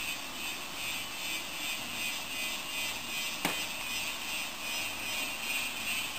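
Steady high hiss of liquid sprayed from a hose nozzle onto hot bronze, steaming off the metal during hot patination. A single sharp click about halfway through.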